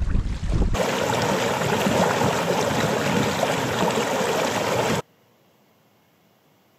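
Brief wind buffeting on the microphone, then a shallow stream rushing and splashing over stones, heard close up. The water sound cuts off suddenly after about four seconds, leaving near silence.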